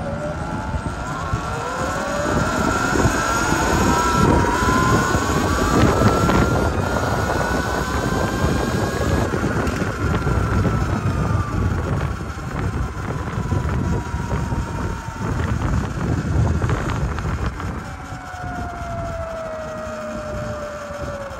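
Sur-Ron electric motorbike's motor and drivetrain whining, rising in pitch as it speeds up over the first nine seconds or so, then falling as it slows, and falling again near the end. Wind rumbles on the microphone throughout.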